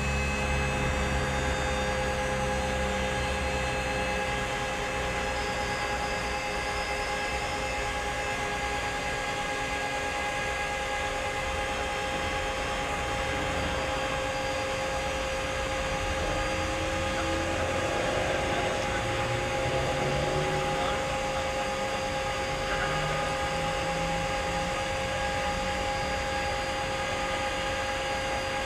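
Two DB class 225/218-type diesel-hydraulic locomotives idling at a standstill: a steady high whine over a low engine rumble. The rumble is strongest in the first few seconds, and about two-thirds of the way through a lower tone rises briefly.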